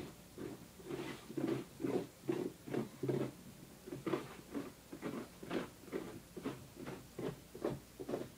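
Raw pumpkin being cut open around its top by hand: rhythmic rasping strokes through the rind and flesh, about two or three a second.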